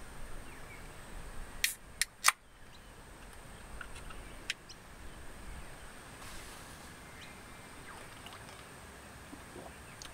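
Quiet outdoor background with a faint steady high tone, broken by three sharp clicks in quick succession about two seconds in and a single click a couple of seconds later.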